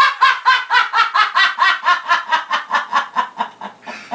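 A person laughing hard in a long run of quick, high-pitched bursts, about four a second, trailing off toward the end.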